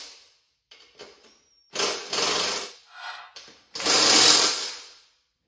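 Cordless impact driver rattling in short runs as it tightens the mounting bolts of a new mower-deck blade spindle. The tail of one run is heard at the start, then two full runs of about a second each, about two and about four seconds in. The tightening is meant to draw the slightly bent deck back into position.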